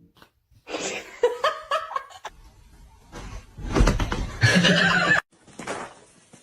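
A person laughing in several short fits, the loudest about four seconds in, cut off suddenly.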